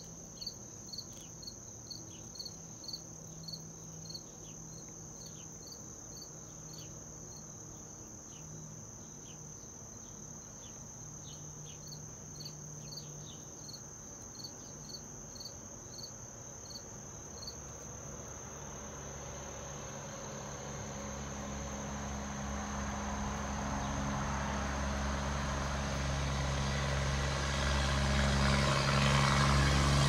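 Steady high insect buzz with a short chirp repeating about twice a second through the first half. From about halfway a low mechanical rumble with a hiss rises steadily, becoming the loudest sound by the end.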